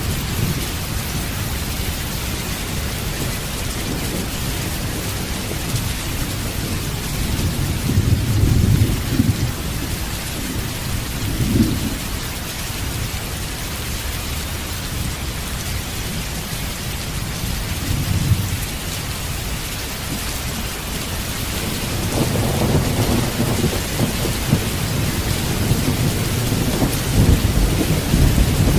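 Steady rain with rolling thunder. Low rumbles swell about a third of the way in and again near the middle, and a longer rumble builds from about three quarters of the way through to the end.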